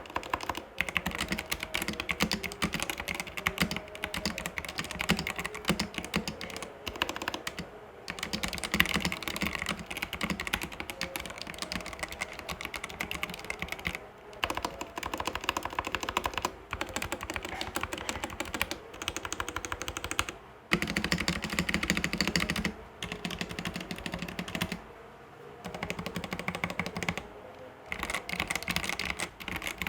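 Mechanical keyboard fitted with cherry-profile keycaps, typed on quickly as a sound test: a fast, dense clatter of keystrokes, broken by a few short pauses.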